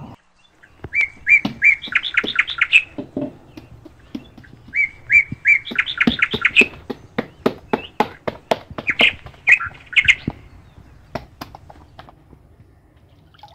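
A small songbird chirping: two quick runs of bright, rising chirps, then a few more near ten seconds in. Sharp clicks are scattered through the middle, thickest from about seven to twelve seconds in.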